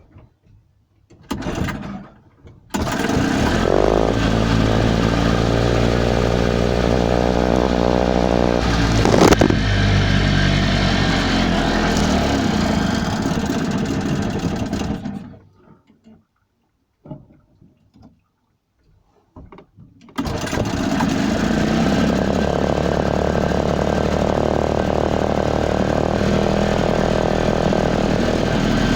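Struggling boat engine. After a short splutter it catches and runs for about twelve seconds, then dies away. After a few seconds of quiet and a couple of brief coughs it starts again and runs steadily.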